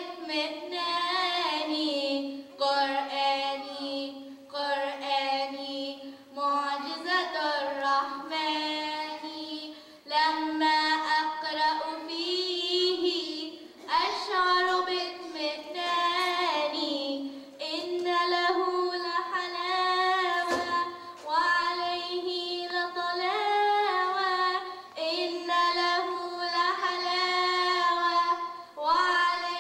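A young girl singing an Arabic nasheed solo and unaccompanied, in long held notes that waver and slide, with short breaths between phrases. A single brief knock about two-thirds of the way through.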